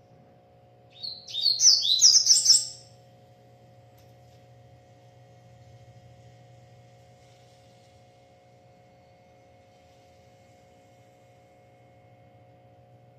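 Double-collared seedeater (coleiro) singing a single loud burst of quick, high chirping notes about a second in, lasting about two seconds. A steady low hum runs underneath.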